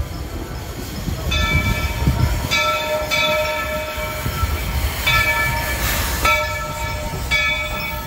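Walt Disney World Railroad steam locomotive's whistle blowing a series of about five blasts with short breaks between them, starting about a second in, over the low rumble of the train.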